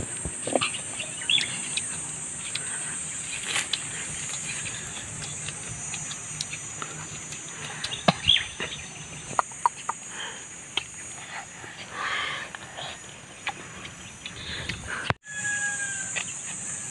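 Outdoor ambience: a steady high-pitched drone with short bird calls now and then, likely chickens clucking, and scattered small clicks from small fruits being handled and cut by hand. The sound cuts out sharply about fifteen seconds in and then resumes.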